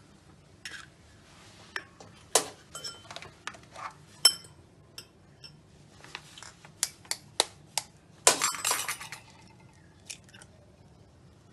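Eggs being cracked against the rim of a bowl: a series of sharp taps and clinks, some leaving the bowl ringing briefly, with a longer clattering rattle about eight seconds in.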